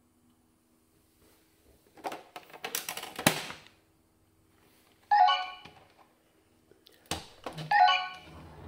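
Plastic dust-bin lid of a Vorwerk Kobold VR300 robot vacuum handled and snapped shut with a sharp click, then two short electronic chimes from the robot, the second just after a click.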